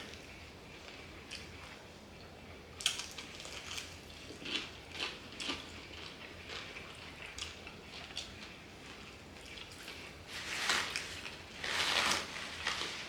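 Eating sounds from crispy fried chicken wings: scattered crunchy bites and wet chewing, louder and longer about ten and twelve seconds in.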